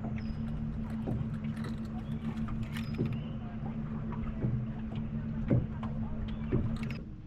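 A boat motor running steadily with a low hum, cutting off just before the end. Scattered clicks and a few louder knocks sound over it.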